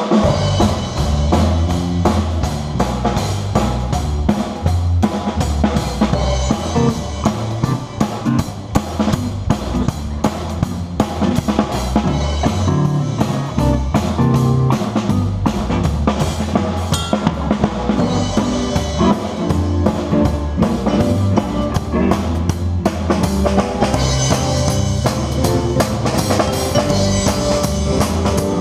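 Live band playing a blues groove: drum kit with steady bass drum and snare beats under electric guitar and bass, starting abruptly at full volume.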